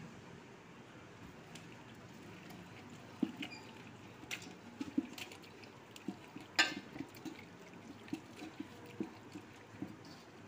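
A hand mixing raw chicken into a yogurt-and-spice marinade in a metal pot: wet squelching, with irregular sharp clicks from about three seconds in, the loudest a little past the middle.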